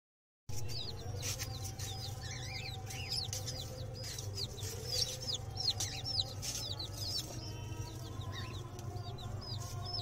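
A flock of small birds chirping: many short, high-pitched chirps, several a second, over a steady low hum.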